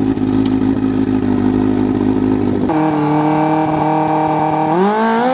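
Turbocharged snowmobile engine idling steadily. About two and a half seconds in its tone changes abruptly to a higher, steady pitch, and near the end the engine revs up.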